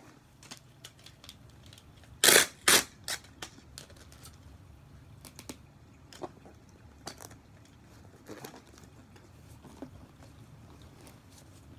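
Hands working a small cardboard shipping box and a paper shipping label: two short, loud rasps a little over two seconds in, then light rustles and taps of paper on cardboard.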